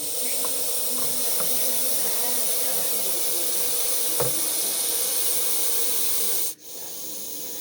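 Russell's viper giving a long, loud defensive warning hiss that breaks off abruptly about six and a half seconds in, followed by a quieter, steady hiss.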